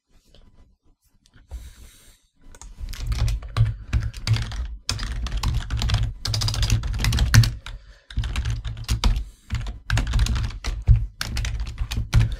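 Fast typing on a computer keyboard: quick runs of key clicks starting about two seconds in, broken by two short pauses.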